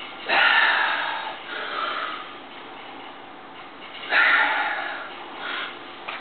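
A man's forceful, strained breaths while bending a steel nail by hand: two loud blasts of breath, one near the start and one about four seconds in, each trailing off, with softer breaths between.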